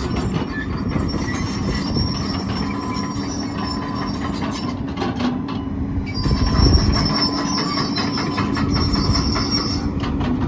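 XCMG XE210 excavator running, its Cummins diesel engine and hydraulics giving a steady whine over a dense, rapid metallic clatter that swells briefly about six seconds in.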